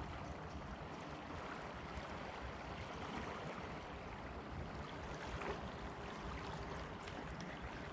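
Steady noise of flowing river water, with a low rumble underneath.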